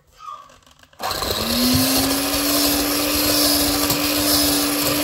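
Electric hand mixer switched on about a second in, its motor whirring up to speed with a briefly rising pitch and then running steadily as the twin beaters churn an egg into creamed butter and sugar.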